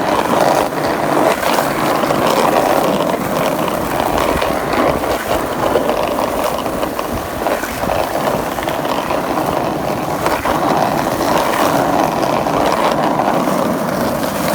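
Skateboard wheels rolling over concrete: a steady rumble with scattered clacks and knocks from the boards.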